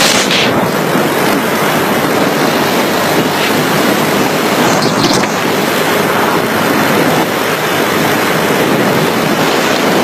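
Loud, steady wind buffeting a smartphone microphone carried on a moped at about 40 mph, an even rushing noise that covers everything else.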